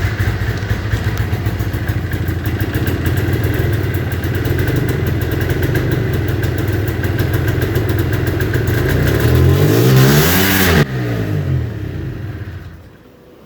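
A rebuilt 1989 Yamaha Exciter 570 snowmobile's two-stroke engine starts up sharply and runs steadily. About ten seconds in it is revved up and back down, then cuts out abruptly and winds down to a stop.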